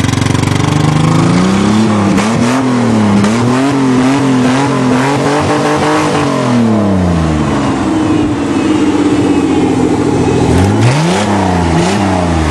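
Ford Ranger pickup's engine, running again after the truck rolled over, being revved. The revs climb and are blipped up and down several times, drop back to a steady idle, then are blipped twice more near the end.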